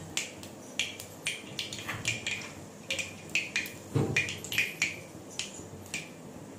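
Panch phoron seeds crackling and popping in hot oil in an aluminium kadai over a high flame: irregular sharp pops, with a duller knock about four seconds in.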